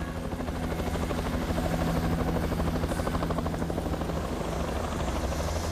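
Helicopter rotor and engine sound effect from an animated cartoon: a steady, rapid rotor chop over a low engine hum.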